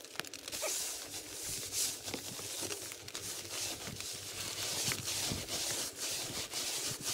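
Nylon pop-up tent fabric rustling and crinkling as someone moves about inside the tent, in irregular bursts of crackle over a steady hiss.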